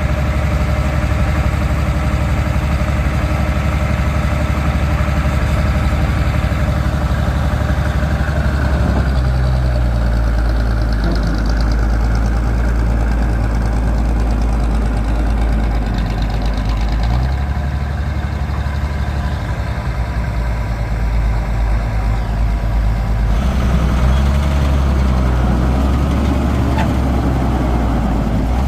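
Diesel engine of a heavy farm or earth-moving machine running steadily at close range, its note shifting a few times as engine speed and load change.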